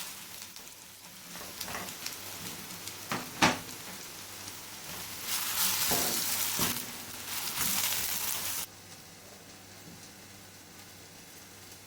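Chopped onions sizzling and frying in hot oil in a karahi, with a few sharp knocks of the stirring spoon against the pan. The sizzle swells about five seconds in, then drops away abruptly to a faint hiss at about eight and a half seconds.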